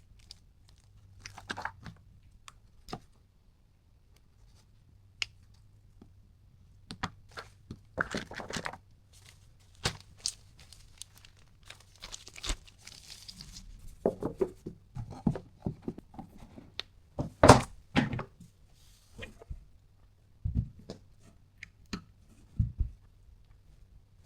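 Keyboard packaging handled and unwrapped by hand: crinkling and tearing, scattered clicks, and a few dull thuds, the loudest a little after halfway.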